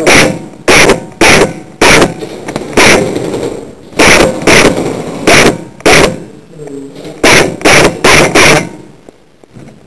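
Airsoft guns firing single shots in an irregular string, about fifteen sharp shots over eight seconds, stopping shortly before the end.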